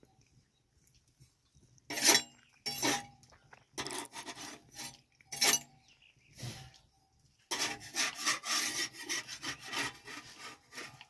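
Dry rubbing and scraping in short separate bursts, then a longer, denser stretch of scraping in the second half.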